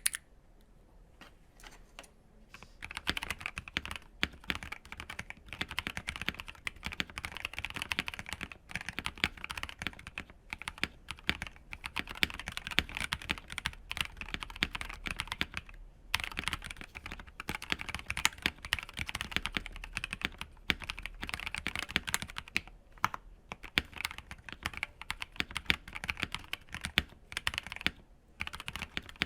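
Typing on a mechanical keyboard with thick ABS double-shot GMK keycaps over factory-lubed C3 Tangerine 62g switches, a KBD67 Lite. A few scattered keystrokes come first, then after about three seconds a fast, dense stream of key clacks with a few short pauses.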